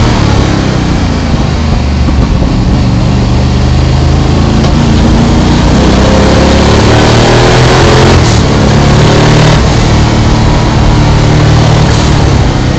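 Twin-turbo 347 cubic-inch Ford Windsor V8 of a Mazda FD RX7 race car, heard from inside the cabin, pulling hard under acceleration on a first run on low boost (7 psi) with mufflers fitted. The engine note climbs steadily, drops briefly a little past eight seconds and again around nine and a half, the way it would at gear changes, then climbs again.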